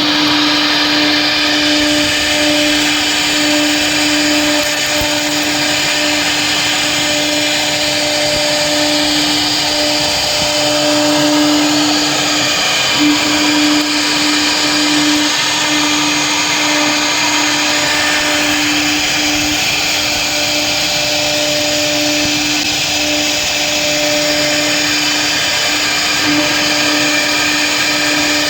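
CNC router spindle milling a 40 mm black HDPE sheet: a steady whine over a constant hiss of the bit cutting the plastic.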